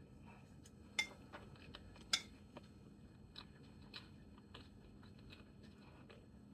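Cutlery clinking against a plate while eating, two sharper clinks about a second and two seconds in, with small soft ticks and scrapes between.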